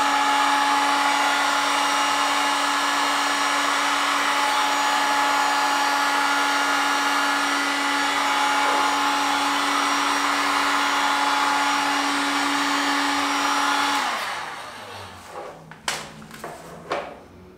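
Heat gun blowing steadily with a constant motor hum, shrinking heat-shrink tubing over a crimped battery cable lug. About fourteen seconds in it stops and runs down, followed by a few light clicks.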